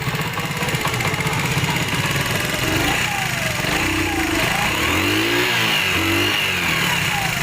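70cc single-cylinder four-stroke motorcycle engine running at idle, its throttle opened and let back a few seconds in so the pitch rises and falls, then settling back. The tappets have just been adjusted, and it runs without the tappet clatter it had before.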